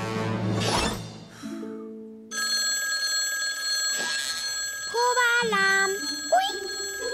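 Cartoon score music with a quick whoosh, then from about two seconds in a steady electronic ringing of a cartoon mobile phone, with a short pitched phrase over it near the end.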